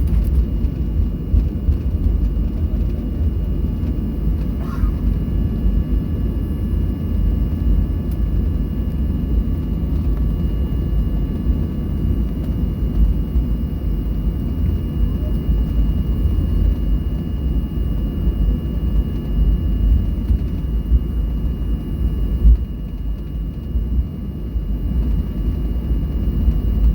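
Boeing 737-800's CFM56-7B turbofan engines running, heard from inside the passenger cabin: a steady low rumble with a faint, constant whine on top.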